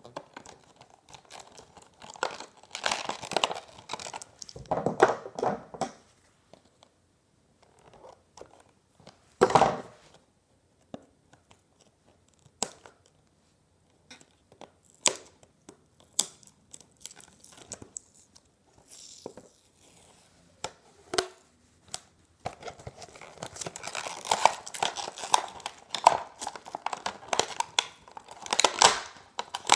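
Clear plastic blister packaging of a toy booster pack being pried and peeled off its cardboard backing card, crinkling and crackling in irregular bursts. A sharp crack comes about a third of the way in, then scattered clicks, then a long stretch of dense crinkling near the end.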